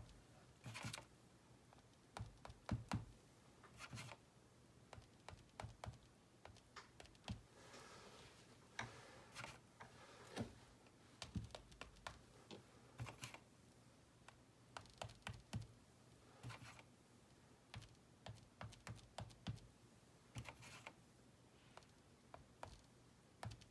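Faint, irregular light taps of a paintbrush on a stretched canvas, with a few soft swishes between them.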